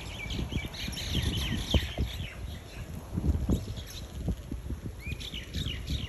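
A flock of common mynas chirping together as they feed on a lawn: many short, overlapping chirps, busiest at the start and again near the end, over low rumbling bumps on the microphone.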